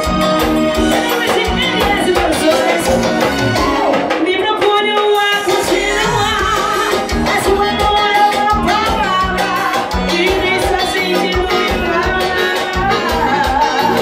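Live forró band playing loudly, a woman singing the melody into a microphone over drums, guitar and a steady beat.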